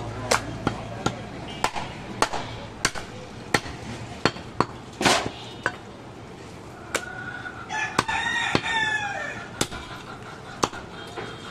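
Heavy cleaver chopping goat ribs on a wooden log block, a sharp knock every half second to second. About seven seconds in, a rooster crows once for about two seconds over the chopping.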